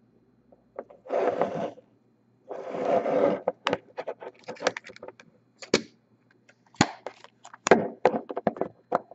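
Hard plastic card holders scraped twice across a table, then clicking and knocking against each other as they are gathered into a stack.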